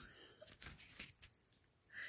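Faint, soft taps and rustles of a cat's paw on a smartphone and its case, a few light clicks scattered through a near-silent stretch.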